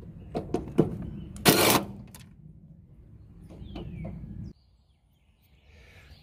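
Cordless drill with a long extension bit working a screw on a rusted metal grill box: a few sharp knocks, then a short, loud burst about one and a half seconds in. A bird gives a single falling chirp near four seconds in, and the sound cuts off suddenly soon after.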